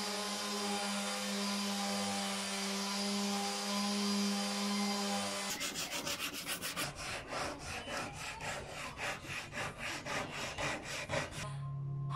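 Electric palm sanders running on plywood, sanding down wood filler, with a steady motor hum. About halfway through, the hum gives way to rapid, even rubbing strokes of sanding on wood, about four or five a second.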